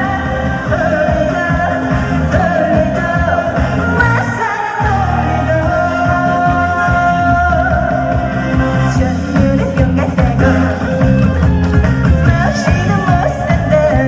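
A woman singing an upbeat pop song live over loud amplified backing music with a steady beat; the bass and drums drop out for a moment about five seconds in.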